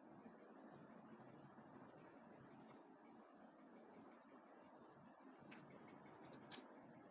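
Crickets chirping steadily in a continuous high trill, faint, with a couple of faint ticks near the end.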